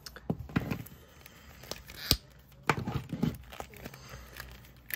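Plastic action figure handled in both hands for a head swap: scattered clicks and knocks of plastic and joints, with one sharp click about two seconds in.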